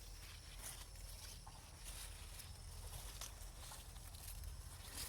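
Faint outdoor background: a steady low hum with a few thin high steady tones, and scattered soft clicks and rustles.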